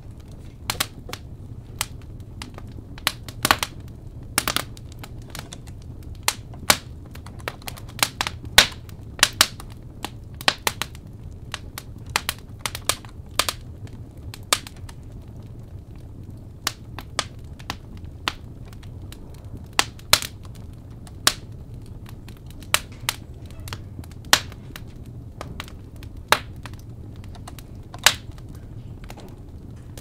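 Burning firewood crackling: irregular sharp pops and snaps, some much louder than others, over a low steady rumble.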